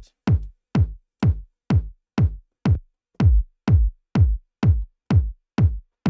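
Layered tech house kick drum: Ableton's 909 Core Kit kick stacked with a second sampled kick, looping four-on-the-floor at about two hits a second. Each hit is a short thump whose pitch drops quickly into the deep bass.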